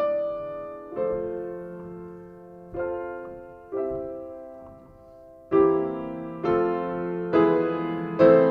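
Piano playing slow chords, each struck and left to ring and fade, about one a second; the playing grows louder and fuller about two-thirds of the way through.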